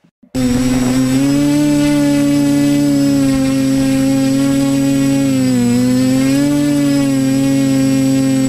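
Electric motors and propellers of an FPV multirotor drone, heard from its onboard camera, humming steadily. The hum cuts in abruptly just after the start, and its pitch dips briefly a little past halfway, then recovers.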